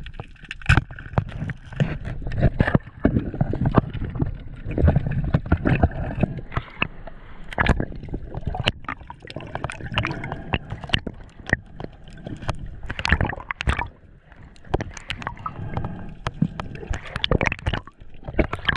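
Water gurgling and sloshing as heard through a submerged action camera, with many irregular sharp clicks and knocks over a low rumble.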